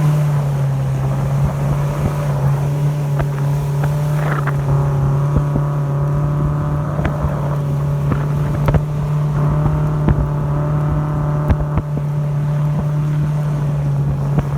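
Speedboat engine running steadily at cruising speed, loud and even, heard from aboard. A few short sharp knocks come through it.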